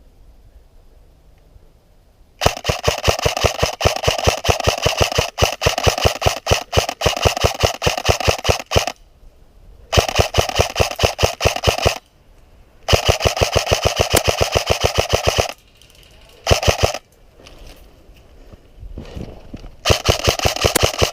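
Airsoft electric gun (AEG) firing on full auto in five bursts of rapid, evenly spaced shots: a long burst of about six seconds, then four shorter ones with short pauses between.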